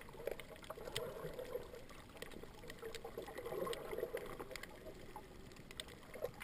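Underwater ambience picked up by a submerged camera: a muffled, wavering water noise with scattered faint clicks.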